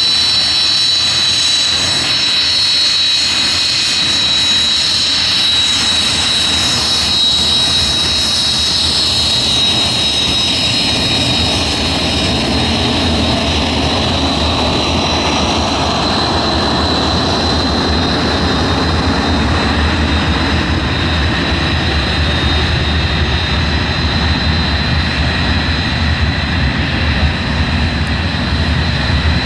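A Hawker Hunter jet's Rolls-Royce Avon turbojet runs at taxi power as it rolls past: a steady high whine over a loud rushing roar. The pitch of the roar drops as the jet passes and moves away.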